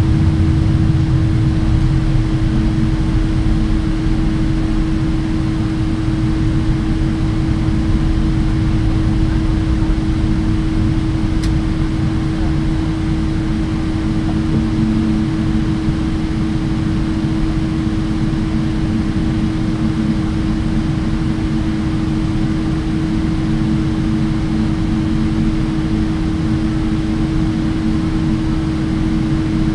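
Cabin noise of a Boeing 777-200ER with its Pratt & Whitney PW4090 engines at idle while the aircraft stands on the taxiway: a steady hum over a low rumble. One faint click comes about eleven seconds in.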